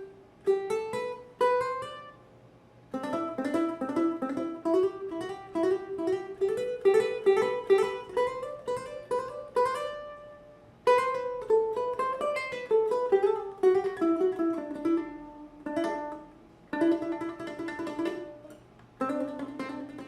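Ohana TK-250GCE tenor ukulele strung with D'Addario EJ88T Nyltech strings, played solo: a plucked melody in short phrases of quick single notes, with brief pauses between phrases.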